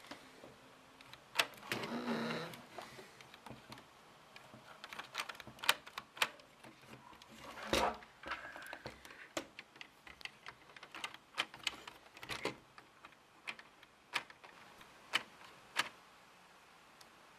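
Irregular clicks and clatter of plastic Lego parts being handled and worked, with a short rattle about two seconds in and a louder knock about eight seconds in.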